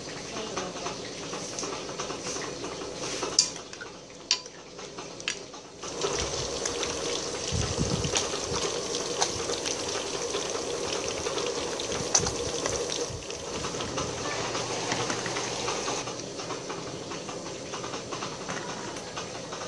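Pieces of fish frying in hot oil in a wok: an even sizzling hiss that grows louder about six seconds in and eases after about sixteen seconds. A few sharp clicks come in the first few seconds.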